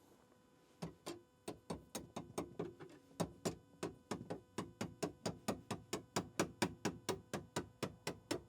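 Hammer blows on a steel rebar bar wedged under a Jeep Wrangler TJ's back seat, driving it in to pry the seized seat loose. A quick, steady run of sharp metallic knocks, about three to four a second, starting about a second in.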